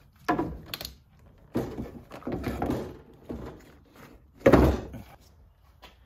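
Car battery being lowered into its tray in the engine bay and shifted into place: a series of knocks and scrapes, with the loudest heavy thud about four and a half seconds in and a small click near the end.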